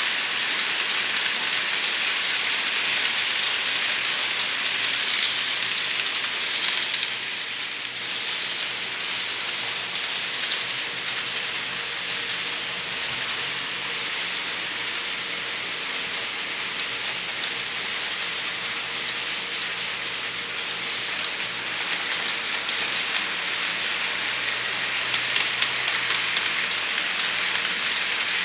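Model trains rolling on model track: a steady rolling hiss with fine wheel clicks over the rail joints and a faint motor hum beneath. The hiss is stronger near the start and again near the end, as a train runs closer.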